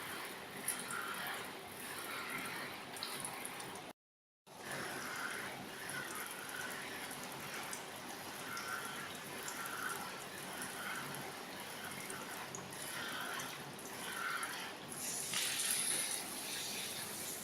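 Water running and splashing over a front-load washing machine's touch control panel. The sound drops out briefly about four seconds in, and the splashing grows louder and brighter near the end.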